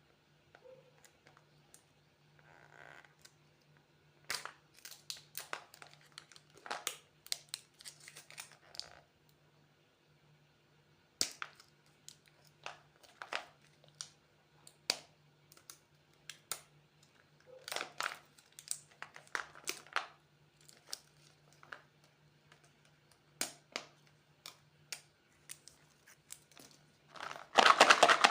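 Plastic candy packaging crinkling and tearing as it is opened. The crackles come in short bursts separated by pauses, and the loudest, densest burst comes near the end.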